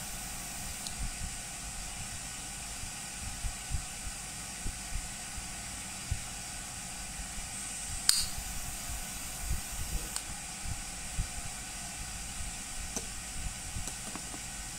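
Kettle-shaped butane jet-flame lighter hissing steadily as it burns, with a sharp click about eight seconds in and soft knocks as it is handled.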